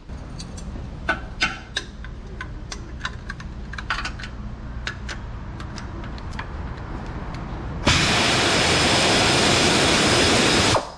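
Scattered metallic clicks and clinks of a hand wrench being worked on a lower engine mount bolt, over a low steady hum. About eight seconds in, a loud steady hiss starts, lasts about three seconds and cuts off sharply.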